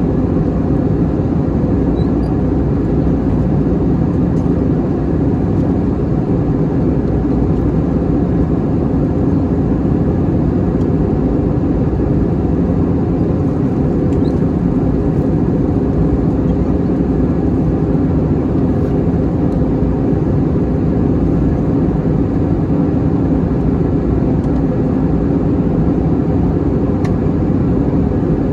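Steady cabin roar of an Airbus A321-211 in flight, heard from a passenger seat: airflow and engine noise, deep and even.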